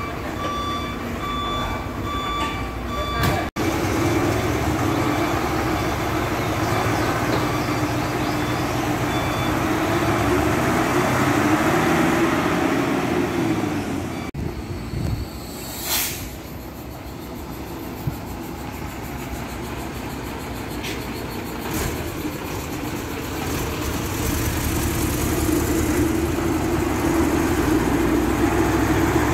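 Nissan CD320 concrete pump truck's diesel engine running steadily, its hum swelling and easing. A reversing beeper sounds for the first few seconds, and a short loud hiss comes about halfway through.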